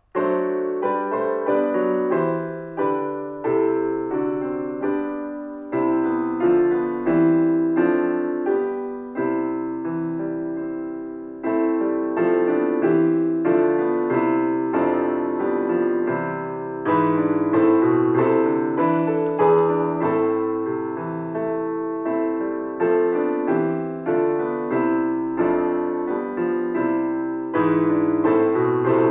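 Piano playing a slow piece in full chords, each struck chord ringing and fading before the next.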